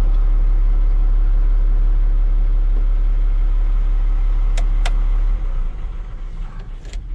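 Volvo L70F wheel loader running, a loud steady rumble with a steady hum. Two sharp clicks come about four and a half seconds in, and shortly after them the noise drops suddenly to a much lower level.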